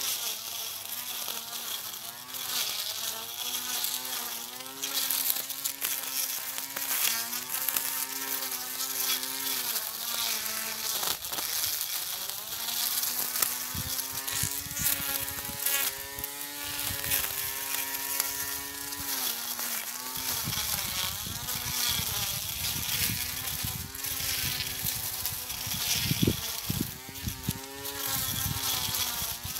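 Portable electric grass cutter's motor whining steadily as it cuts grass, its pitch sagging briefly now and then. From about two-thirds of the way in, low irregular rumbles sound under it.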